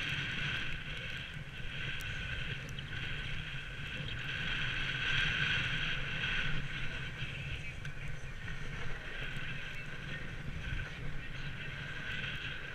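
Skis of a ski bike sliding and scraping over groomed snow at speed, a steady rush mixed with wind on the microphone.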